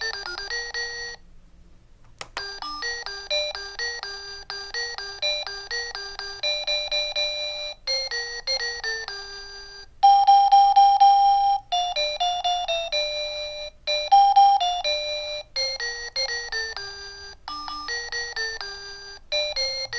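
Relohas digital alarm clock's small speaker playing its built-in alarm tunes: simple electronic melodies of beeping notes. Each tune breaks off after a few seconds and a different one starts as the chime/tunes button is pressed to cycle through them, with a short pause and a click near two seconds in.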